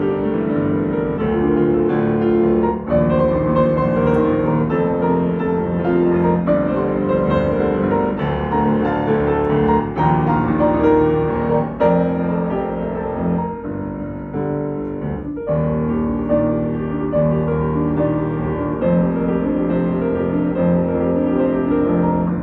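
Yamaha grand piano played solo: a continuous flow of notes with chords underneath, growing briefly softer a little past halfway before picking up again.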